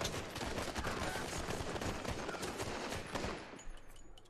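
Sustained rapid gunfire recorded by a police car's dashcam, many shots overlapping in a dense fusillade. It stops about three and a half seconds in, leaving a few single cracks.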